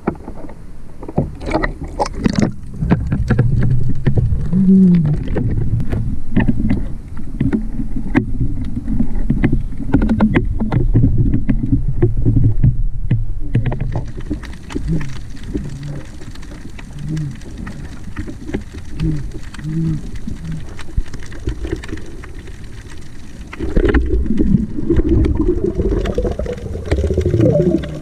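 Water noise picked up by a camera underwater as a spearfisher swims: a heavy low rumble with scattered clicks and knocks, and a few short low pitched sounds.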